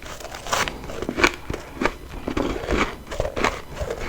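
Refrozen freezer frost from a humidifier being bitten and chewed close to the microphone: crisp, crackly crunches about twice a second.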